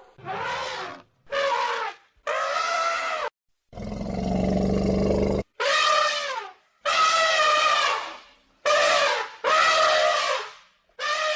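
Elephant trumpeting in a rapid series of short, loud trumpet calls, each cut off abruptly. About four seconds in, a lower, rougher roaring call comes between them.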